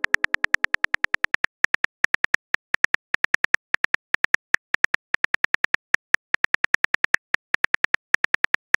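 Rapid run of short, identical keyboard-tap clicks from a phone texting app's typing sound, about seven or eight a second with a few brief pauses, as a message is typed out.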